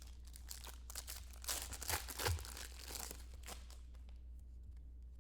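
Foil trading-card pack being torn open and its wrapper crinkled, a run of ripping and rustling that is loudest about two seconds in and dies down after about three and a half seconds.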